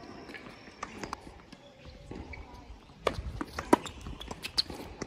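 Tennis ball knocking off racket strings and bouncing on a hard court, a few sharp hits scattered through, more and louder from about three seconds in.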